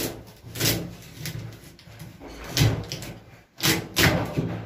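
A large kitchen knife chopping through a lobster onto a wooden cutting board: about six heavy knocks at irregular spacing, two in quick succession near the end.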